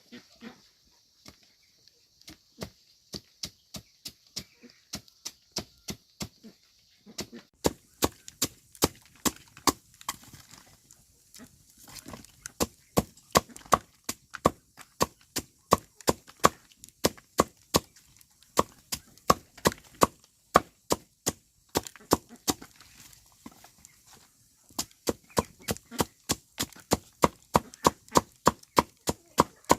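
Rapid chopping with a blade against wood, about three sharp knocks a second. The knocks are lighter for the first several seconds, then louder and steady, with a brief pause near the end.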